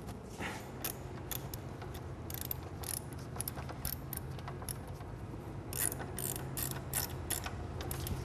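Hand socket ratchet clicking in irregular runs as it tightens a brake caliper mounting bolt on a motorcycle's front fork, over a steady low hum.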